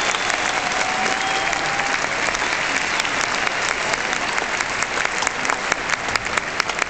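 Arena crowd applauding, the dense clapping thinning into separate claps near the end.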